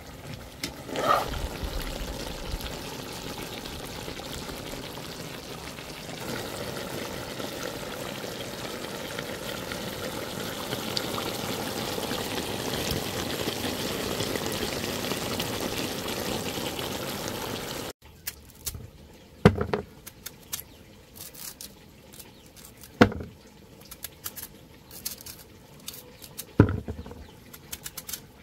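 Chicken wings in barbecue sauce bubbling and sizzling in a pan, a steady hiss that grows a little louder. About two-thirds of the way through it cuts off suddenly, leaving a quieter stretch with a sharp click every few seconds.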